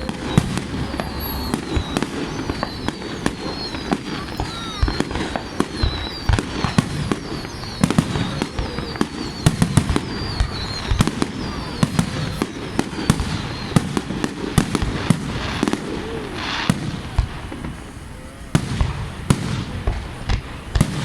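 Fireworks display: a dense, rapid string of bangs and crackles, with a wavering high whistle over the first half and a brief lull near the end before the bangs pick up again.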